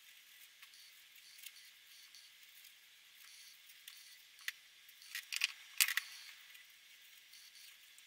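Faint scratching of a Promarker felt-tip marker on paper, with a few sharp plastic clicks about four and a half seconds in and a louder cluster of clicks around five to six seconds in as the red marker is swapped for a yellow one and its cap is handled.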